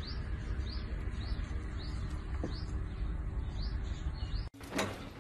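A bird chirping over and over, about two short rising chirps a second, over a steady low outdoor rumble. It cuts off suddenly near the end.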